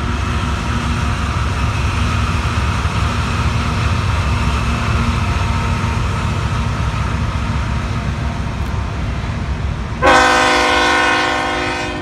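BNSF GE Evolution Series diesel locomotives and their freight cars rumbling steadily past on the rails. About ten seconds in, a locomotive air horn sounds one chord of about two seconds, loud at its onset and easing off: the engineer's friendly "hi" honk.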